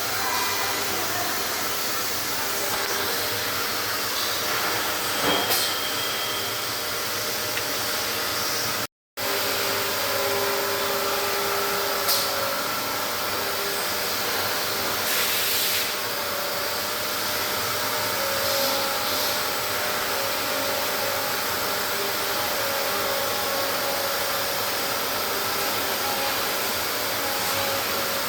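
Steady rushing noise of machinery running in a machine shop, with faint intermittent tones over it; the sound cuts out completely for a moment about nine seconds in.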